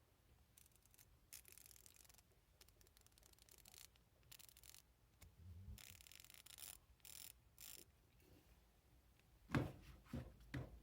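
Faint rubbing and light scraping of flex-head ratchets being handled and lifted out of their foam case, with a few louder knocks near the end.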